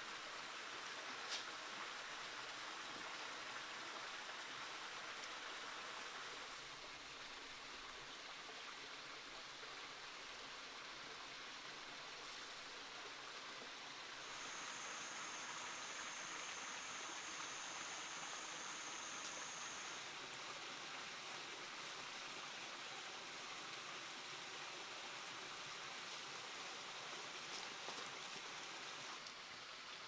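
Steady rush of flowing water, with a few faint crackles scattered through it. A thin, high steady tone is held for about five seconds in the middle.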